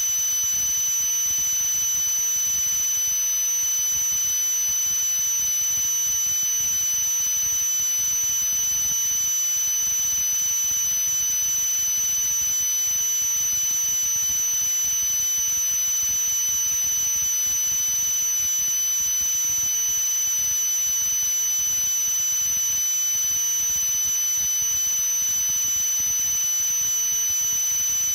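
A steady high-pitched whine over even hiss, unchanging in pitch and loudness.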